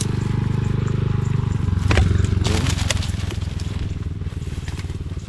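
Small engine running steadily at a constant speed, its firing pulses even, picking up briefly about two seconds in, with a few sharp clicks over it.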